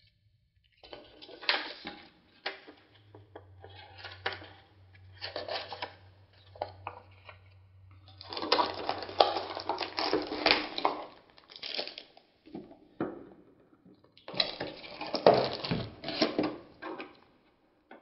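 Packaging being handled and opened: rustling and crinkling of wrapping and cardboard with sharp clicks and knocks. It comes in irregular bursts, loudest in two stretches in the second half.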